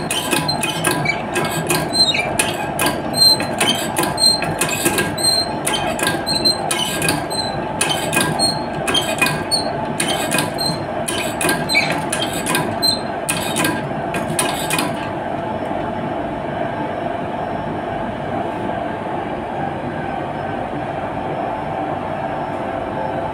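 Hydrostatic test pump being worked stroke by stroke, a squeaky click on each stroke at roughly one and a half a second, as it pushes the water-filled air receiver tank's test pressure up. The strokes stop abruptly about 15 seconds in, leaving a steady machinery hum.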